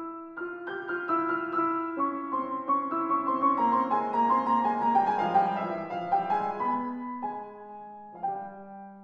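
Steinway grand piano playing a solo classical passage. The notes grow denser and louder to a peak about five seconds in, then thin out to a few sustained notes near the end.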